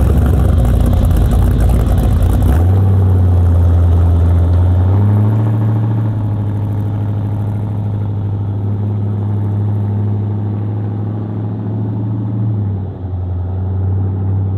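Chevrolet 502 big-block V8 in a 1968 C10 street truck pulling away, a heavy exhaust rumble for the first couple of seconds, then settling into a steady low drone as it drives off, easing slightly toward the end.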